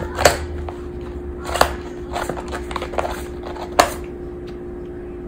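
Knocks and scuffs of a running shoe being batted, bitten and kicked against a vinyl floor by a Bengal cat, several sharp thumps a second or so apart. A steady low hum runs underneath.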